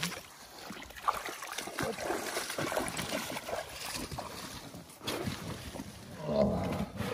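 Rustling and scattered light knocks of fishing gear being handled in an inflatable boat, with a wire-mesh basket moved about.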